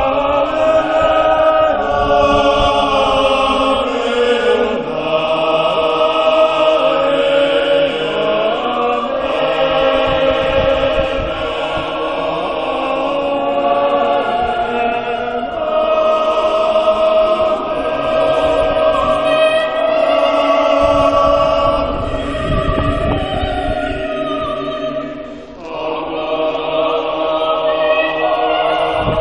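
Large mixed choir of men's and women's voices singing a choral piece in sustained, many-voiced chords, with a brief drop in loudness between phrases near the end.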